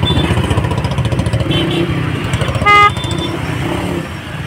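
Many motorcycle engines idling together in a jam, a steady pulsing rumble. About halfway through, one short, loud vehicle horn blast sounds.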